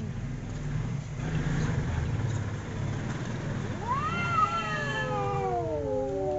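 Cats caterwauling in a fight standoff: a low rough rumble for the first few seconds, then a long yowl that rises sharply about four seconds in and slowly slides down in pitch.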